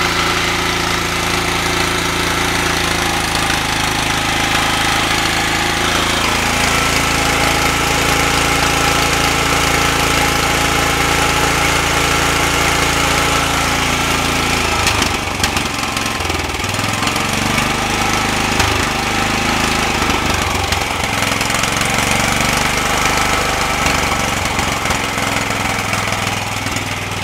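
Small generator engine running on homemade open-loop electronic fuel injection, leaned out to about 1.5 lambda. It runs steadily, and its note turns uneven about halfway through.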